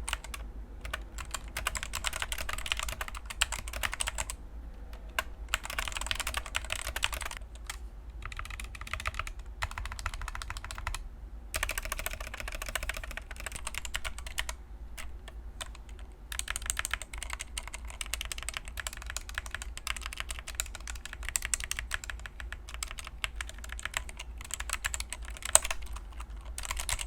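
Fast typing on a Punkston TH61 60% optical keyboard with stock, unlubed linear red-equivalent switches in a padded case. Dense runs of key clicks break off for brief pauses a few times.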